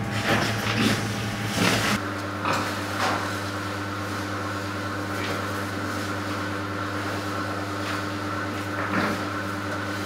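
Steady machine hum inside a pig barn, with scattered knocks and clatters against the pens, most of them in the first three seconds and one more near the end.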